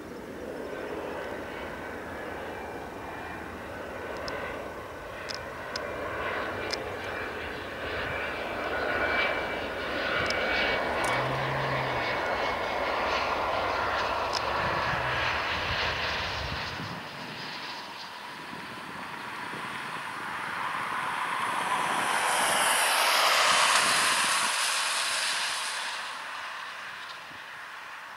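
Dassault Falcon 2000EX business jet landing. The whine of its two Pratt & Whitney PW308C turbofans grows as it comes in over the runway and touches down. The engine noise then rises to a broad roar, loudest about three-quarters of the way through, as the jet rolls out, and fades near the end.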